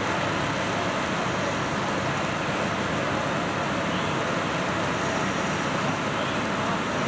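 Steady, unbroken rumble and hiss of fire apparatus running at a working fire: diesel engines and pumps supplying water to the aerial ladder's stream.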